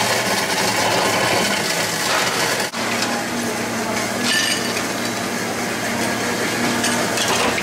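Ice cubes being scooped from an ice bin and clattering into a glass, over a steady low machine hum.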